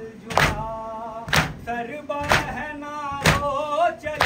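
Shia mourners doing matam: hands striking chests in unison about once a second, under a nauha lament chanted between the strikes.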